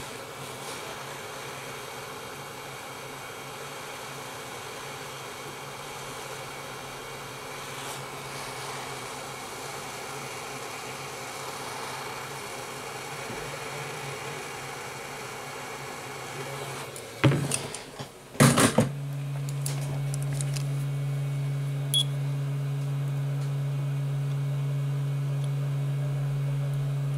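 Hot air rework gun blowing steadily on a tablet's charging-connector flex cable. A few sharp clicks come about two-thirds of the way through, and after them a louder steady low hum takes over.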